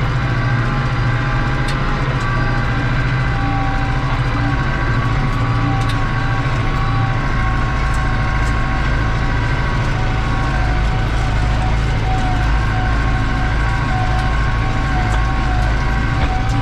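New Holland TD85 tractor's turbocharged diesel engine running steadily under load, heard from inside the cab, pulling a disc harrow through ploughed ground. A turbo whine sits over the low engine note, with a few faint ticks.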